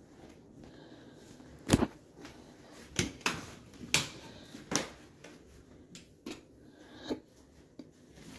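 Irregular knocks and clicks indoors, about seven over several seconds, the loudest a little under two seconds in: footsteps on a hardwood floor and a closet door being handled as someone walks through the rooms.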